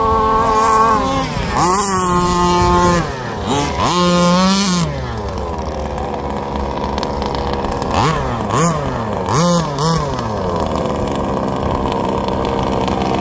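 Small two-stroke petrol engines of RC Baja buggies racing at full throttle, their pitch dropping and sweeping back up several times as the throttle is let off and opened again, with a run of quick throttle blips later on before they settle into steadier running.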